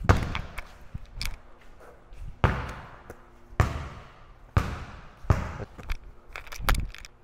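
Basketball bouncing hard on a concrete floor, about seven bounces roughly a second apart, each echoing in a large room.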